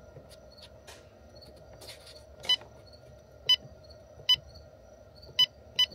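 LiTime battery monitor beeping as its menu buttons are pressed: five short electronic beeps at uneven spacing, starting about two and a half seconds in.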